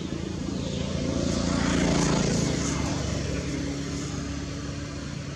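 Engine of a passing vehicle or low aircraft, a steady drone that swells to its loudest about two seconds in and then fades away.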